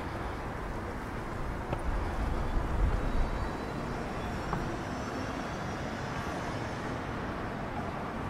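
City street traffic noise: a steady hum of road traffic, with a louder low rumble about two to three seconds in as a vehicle passes.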